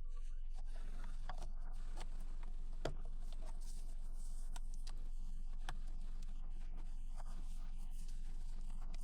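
Scattered small clicks and short scrapes of hand work on a steering wheel, the sharpest click about three seconds in, over a steady low electrical hum.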